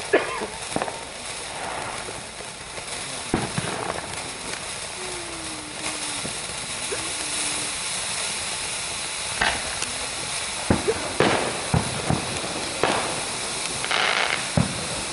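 Consumer fireworks going off: scattered sharp bangs and cracks over a steady hiss, coming more often in the second half.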